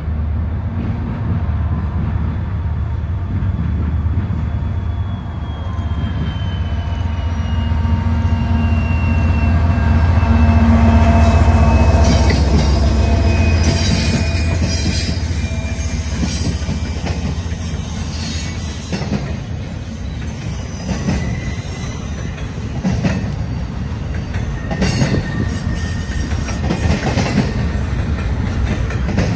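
Norfolk Southern intermodal freight train passing: the diesel locomotive's low engine rumble builds to its loudest as the lead unit goes by, about eleven seconds in. A thin squeal slides down in pitch as it approaches. After it, the trailer and container flatcars roll past with their wheels clicking over the rail joints.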